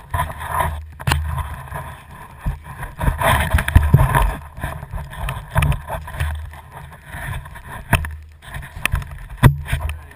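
Someone walking through snow: irregular crunching footsteps, with a heavy low rumble on the microphone from the camera being carried and a few sharp clicks.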